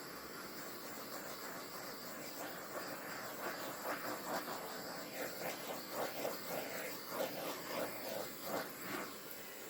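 Small handheld torch hissing steadily as it is played over wet acrylic pour paint to pop surface bubbles. From about two seconds in come soft, irregular crinkles of a plastic painter's tarp underfoot.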